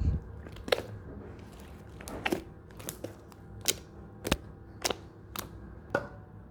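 Slime being pressed and squished by hand, giving a series of sharp pops and clicks about every half second to a second.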